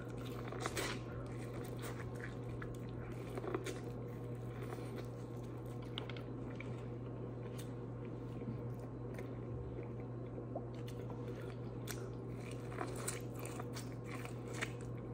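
A person biting into corn on the cob and chewing it close to the microphone, with small scattered crunches and wet mouth clicks over a steady low hum.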